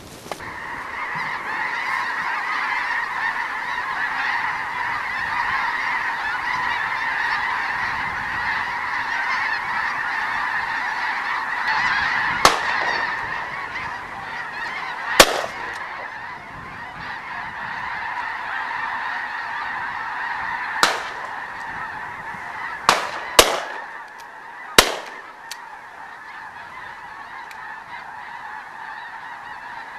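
A large flock of geese honking overhead in a dense, continuous chorus, with six loud shotgun shots fired at them, the first about twelve seconds in and the last about twenty-five seconds in. The honking grows fainter after the shooting.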